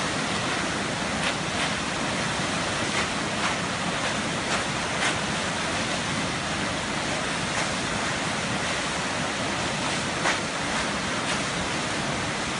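Steady roar of fast river water churning through a standing surf wave, with a few short sharper splash sounds now and then.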